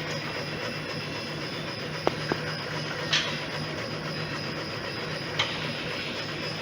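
Ruidcar road-simulator platforms shaking a Ford Focus, a pulsing machine hum with rattling, and four sharp knocks from the front suspension. The mechanic traces the knock to the joint between the strut mount and the shock absorber.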